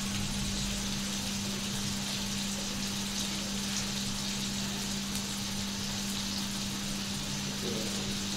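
Steady background hiss with a constant low hum, unchanging throughout.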